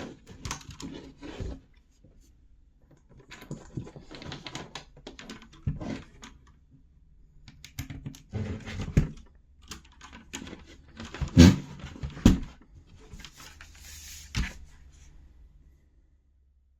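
Typing on a mechanical keyboard with linear red switches: bursts of rapid key clicks separated by short pauses. The typing stops near the end.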